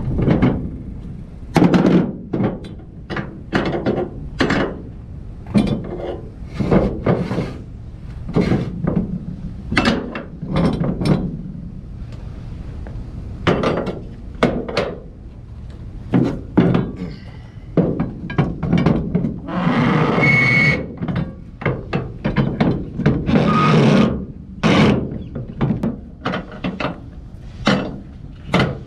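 Flatbed cargo-strap hooks and hardware knocking and clattering irregularly against the trailer's side rail as nylon straps are handled and hooked on. A longer scrape with a squeak comes about two-thirds of the way through.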